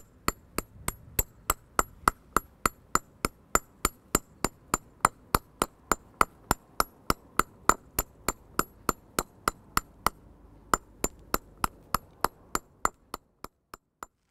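Hammer striking a chisel on stone: a steady run of sharp strikes, about three a second, each with a high metallic ring. The strikes stop briefly about ten seconds in, then start again and grow fainter near the end.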